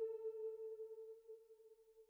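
A single held note of the background music, one steady pitch fading away to near silence.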